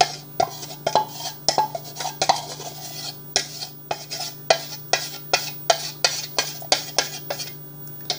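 Container of cacao powder being tapped over a mixing bowl to knock the powder out: a rapid series of sharp taps, about two or three a second.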